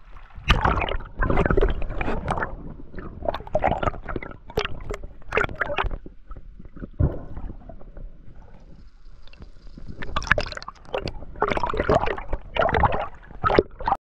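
Water sloshing, splashing and gurgling around a spearfisher's action camera at and below the sea surface, in irregular bursts with a few sharp knocks.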